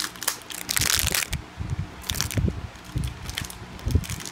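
Toy packaging crinkling and crackling as it is pulled open and handled by hand, in irregular bursts that are densest about a second in.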